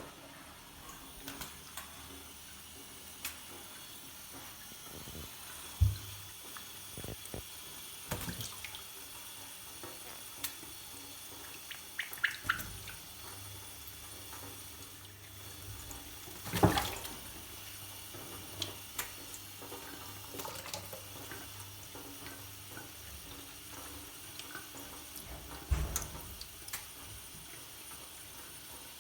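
Water running steadily from a tap into a sink as a monk parakeet is bathed, with scattered splashes and knocks, the loudest just past halfway.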